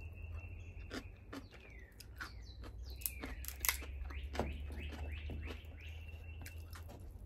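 Songbirds chirping and whistling, with short sliding notes and a held high note. Scattered sharp clicks come from a cooked Dungeness crab's shell being picked apart by hand.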